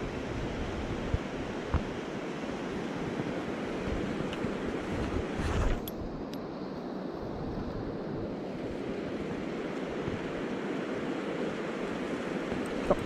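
Steady rushing of a mountain stream's flowing water, with a few faint clicks and a brief louder swell of noise about halfway through.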